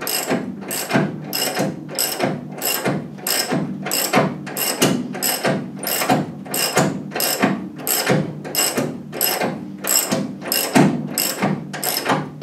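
Hand ratchet wrench worked steadily back and forth, a rattle of pawl clicks on each stroke, about two and a half strokes a second, winding a long threaded fastener through the inches of travel still to go.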